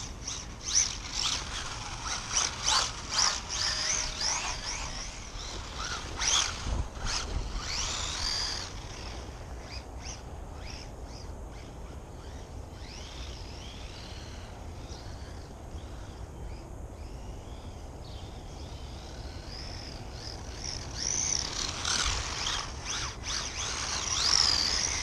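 Small electric RC car's motor whining in bursts, rising and falling in pitch with the throttle, along with clicks and rattles from the chassis and tyres on snow. It is loudest for the first several seconds and again near the end, and quieter and farther off in between.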